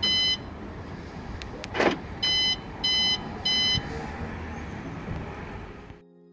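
Mercedes-Benz factory alarm system chirping on locking and unlocking, coded to 10% volume: one short electronic beep, then about two seconds in a short clunk followed by three quick beeps.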